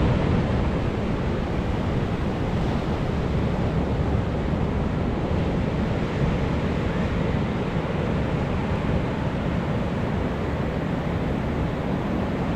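Pacific Ocean surf, a steady wash of breaking waves, with wind rumbling on the microphone.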